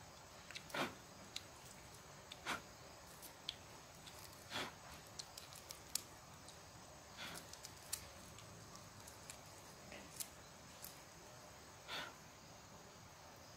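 Quiet, brief scraping and squelching noises, about five of them a couple of seconds apart, with a few sharp little clicks between: cooked snails being handled and picked apart by hand.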